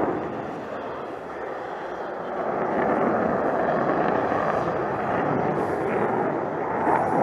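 The F-22 Raptor's twin Pratt & Whitney F119 turbofan engines, heard as a steady rushing jet noise from the fighter in flight. It eases a little about a second in, then swells again from around two and a half seconds.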